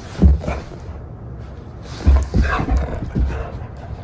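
Treeing Walker Coonhound at play, with low thumps just after the start and several more from about two seconds in. A short, pitched yelp-like sound from the dog comes around two and a half seconds in.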